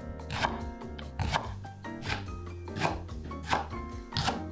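Chef's knife slicing through a leek and tapping the wooden cutting board, about six crisp cuts at an even pace, over background music.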